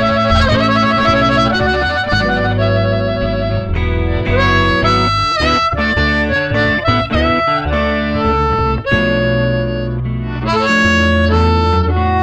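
Blues harmonica playing an R&B melody with held notes and pitch bends, backed by guitar and bass guitar.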